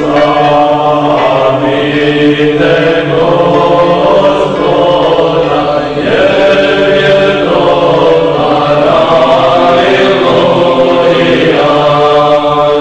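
Orthodox church choir chanting a slow hymn, several voices moving in melodic lines over a steady held low drone note.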